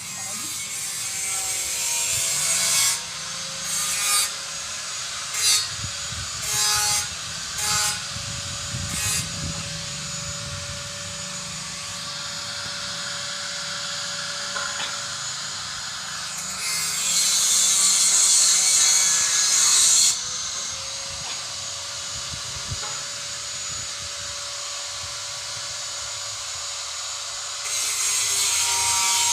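Electric angle grinder running with a steady motor whine, cutting in for about six short grinding passes, then a longer grind of about three seconds in the middle, and grinding again near the end.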